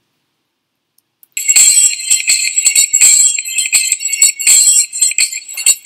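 Silence for over a second, then loud, high-pitched jingling like bells or a tambourine, thick with small metallic clicks.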